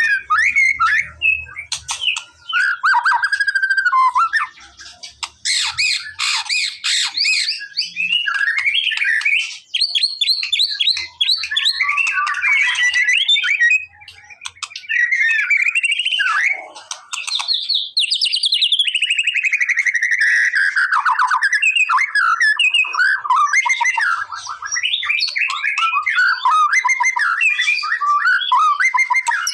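White-rumped shama singing a long, varied song of whistled glides, rapid trills and harsh chattering notes, with only brief pauses.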